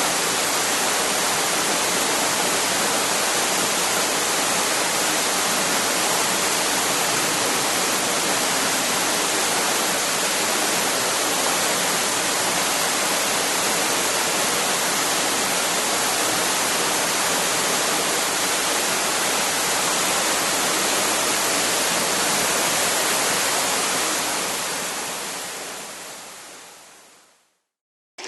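Waterfall: a steady, dense rush of falling water that fades out near the end.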